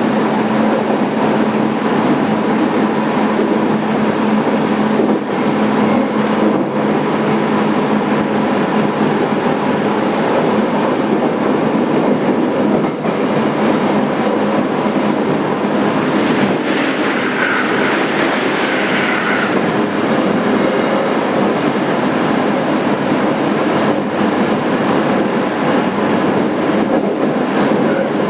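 Running noise of a JR Kyushu 817 series 3000-subseries electric train heard from inside a motor car: steady rumble of wheels on rail with a constant motor hum. A brief higher-pitched sound rises over it about two thirds of the way through.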